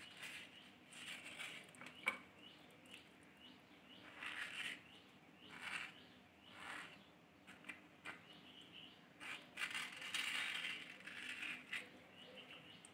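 Small kitchen knife cutting a peeled ripe mango into pieces: soft, scattered slicing and scraping strokes through the flesh, with one sharp click about two seconds in.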